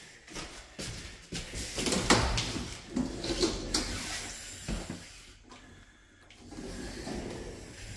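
A closet door being opened and handled: a run of irregular clicks and knocks, busiest in the first half, then quieter before a few more near the end.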